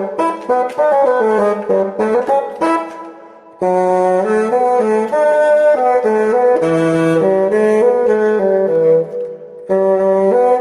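Solo bassoon playing a melody in phrases of changing notes, with two short breaks, about three and a half seconds in and near the end.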